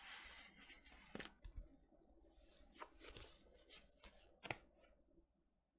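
Faint handling of a vinyl record's cardboard jacket and paper sleeve: rustling and sliding, with a few sharp taps and clicks, the loudest about four and a half seconds in, then near silence.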